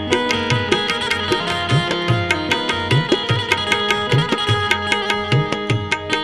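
Instrumental interlude of a Gujarati devotional bhajan: harmonium holding a melody over a tabla beat, the bass drum's strokes bending in pitch, with a steady run of sharp metallic ticks, several a second, keeping time.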